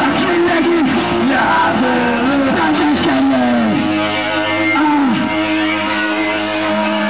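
Hardcore punk band playing live: shouted, screamed vocals over distorted electric guitar. The vocals stop about five seconds in, leaving held guitar notes ringing.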